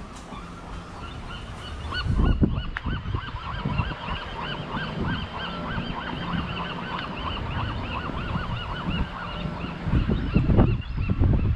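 A colony of seabirds calling: many short, repeated, overlapping calls, several a second. Gusts of wind buffet the microphone about two seconds in and again near the end.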